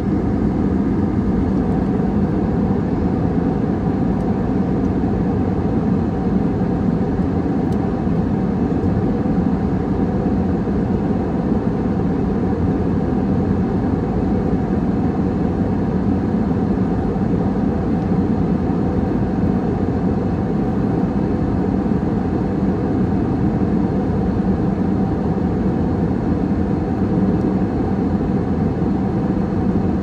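Steady cabin noise of a jet airliner in cruise, heard inside the cabin: an even, low rumble of engines and rushing air with a steady low hum, unchanging throughout.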